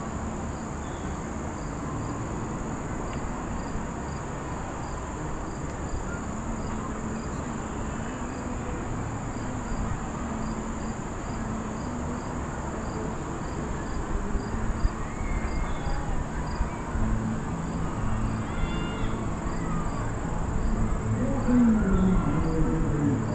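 Insects singing: a steady high buzz with a regular chirp about twice a second, over a constant low rumble that grows louder in the last few seconds.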